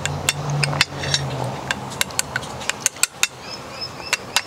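Wooden chopsticks clicking and tapping irregularly against a small ceramic dish while stirring wasabi into soy sauce.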